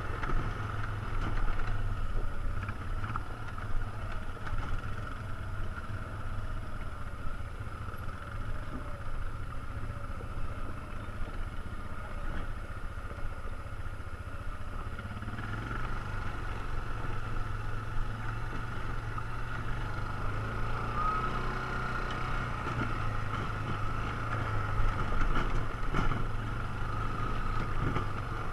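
ATV engine running with a steady, even note and no marked revving, with a few brief knocks.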